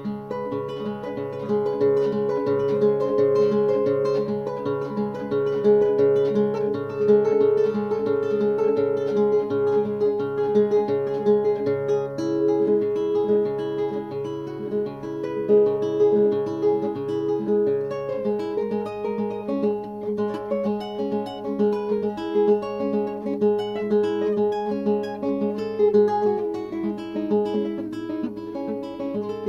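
Classical guitar played solo, a steady stream of quick plucked notes over lower bass notes.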